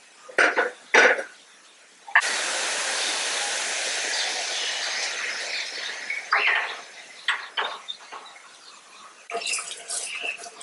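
Two clinks, then water pouring steadily for about four seconds, starting abruptly and tailing off. A few more knocks follow, and near the end dry rice grains fall into a steel pot of simmering broth.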